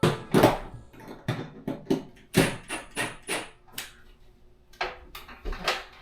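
Hammer driving nails through waterproof foam-core board into the framing: about a dozen sharp, irregularly spaced strikes, pausing briefly about four seconds in.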